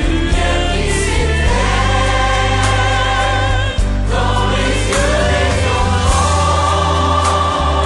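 A musical-theatre song: several voices singing with vibrato over a band with a heavy, steady bass, with one note held for over a second near the end.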